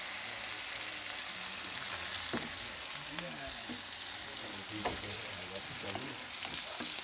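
Sliced onions sizzling in hot oil in a kadai as they are stirred with a spatula, with a few sharp clicks of the spatula against the pan.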